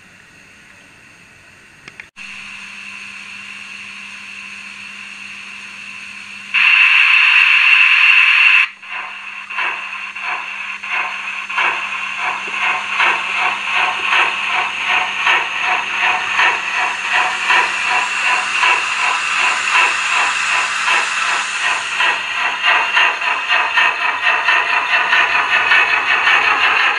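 Sound-fitted model steam locomotive: a steady hiss of steam at standstill, then a loud blast of steam lasting about two seconds, then exhaust chuffs that start slowly and quicken steadily as it pulls away with its train.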